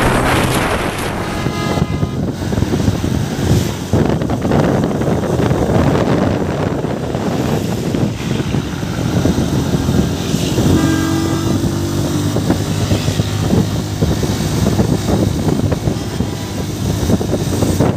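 Motorcycle riding at speed, its engine running steadily under heavy wind rushing over the microphone.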